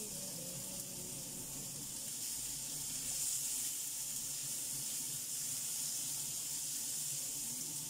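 Tomato and chili sauce sizzling and steaming in a frying pan, with a little water already added; a steady hiss that grows slightly louder about three seconds in.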